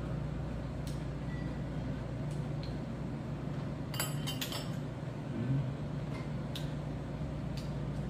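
Metal chopsticks clicking and clinking against small dishes and a bowl while eating: a few scattered light clicks and a quick run of clinks about halfway through, over a steady low hum.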